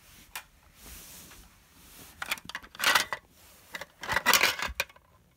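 Handling noise from the recording phone: rustling and scraping as it rubs against clothing, in two loud bursts of about a second each, with a few light clicks before them.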